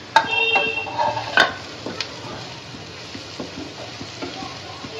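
Wooden spatula stirring and scraping onions, green chillies and spices frying in oil in a non-stick frying pan, with a steady sizzle. The spatula knocks against the pan a few times in the first two seconds.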